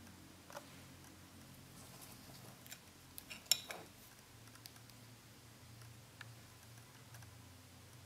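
A few faint clinks and taps of a metal spoon against a ceramic noodle bowl, the loudest about three and a half seconds in, over a faint low hum.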